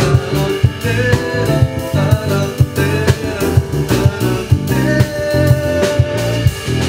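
Live band playing an upbeat groove: drum kit keeping a steady beat under electric bass and keyboard.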